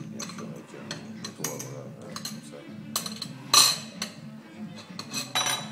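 A glass clip-top jar and a spoon clinking and rattling against a ceramic saucer as a small dog licks the jar out, a string of short sharp clinks with the loudest about three and a half seconds in and another near the end, over background music and voices.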